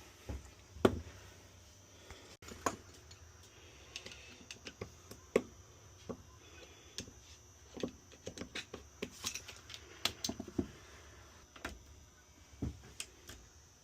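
Small metal lock parts and hand tools clicking and tapping irregularly as a stuck lock cylinder is worked on and taken apart, the loudest click about a second in and a quick run of clicks later on.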